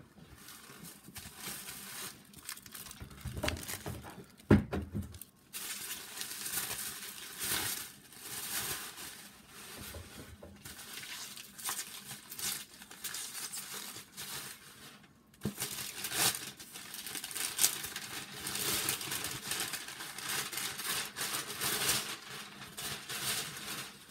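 Packaging crinkling and rustling in bursts as a mail-order comic book mystery box is unpacked by hand, with a sharp knock about four and a half seconds in and another about fifteen seconds in.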